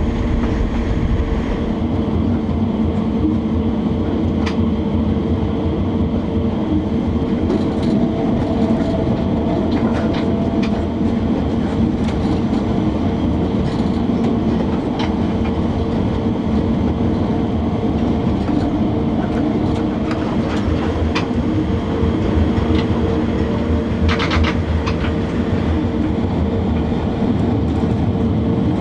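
Running noise of a DB class E10 electric locomotive under way, heard from the cab: a steady drone with a constant hum. Scattered clicks and clunks come from the wheels running over rail joints and points, with a short burst of them near the end.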